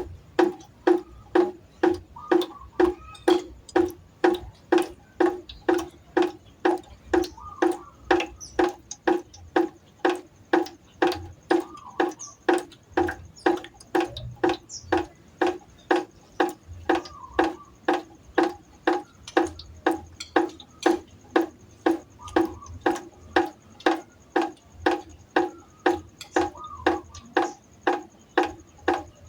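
Water droplets falling one at a time into a pot, each drop a short hollow plink with a ringing note, in an even rhythm of about two a second.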